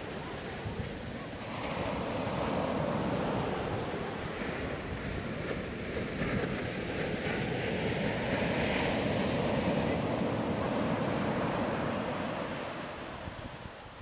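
Ocean surf: small waves breaking and washing up the shore as foam, a steady rushing that swells about two seconds in and again in the middle, then fades near the end.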